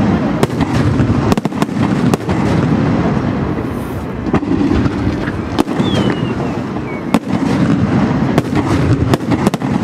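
Ponte Fireworks display going off: a dense rumble of shells with many sharp bangs at irregular intervals, and a brief falling whistle a little before six seconds in.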